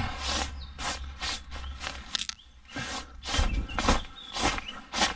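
Quick sweeping strokes brushing out a tent floor by hand, about two a second, with a brief pause about halfway.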